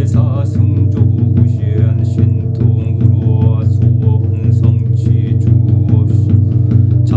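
Meditative background music: a deep steady drone with a regular beat and a faint wavering melody above it.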